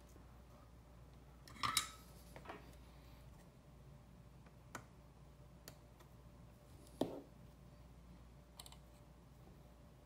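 A few scattered small clicks and taps of tools handled at a circuit board during soldering work, the loudest about two seconds in and another about seven seconds in, over a faint steady hum.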